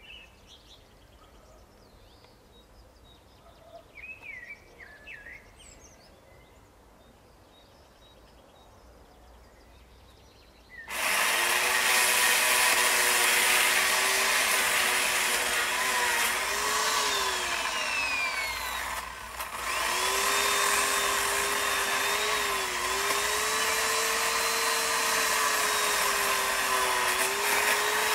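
A few bird chirps over quiet, then about eleven seconds in a power saw starts abruptly and runs steadily while cutting into the tree, its motor pitch sagging briefly under load several times. It stops for a moment about two-thirds of the way through and starts again.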